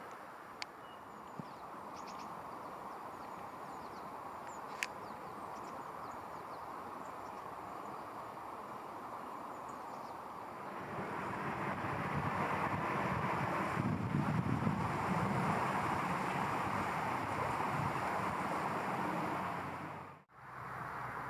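Steady outdoor rushing noise, of wind or distant traffic, growing louder about halfway through and dropping out abruptly shortly before the end. A few faint, short, high bird chirps and a couple of sharp clicks come in the first few seconds.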